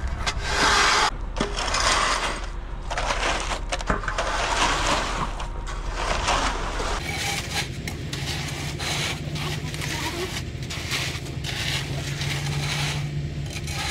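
Wet concrete being raked and screeded: a concrete rake and a straightedge dragging and scraping across the fresh slab in repeated strokes. A low steady hum joins in about halfway through.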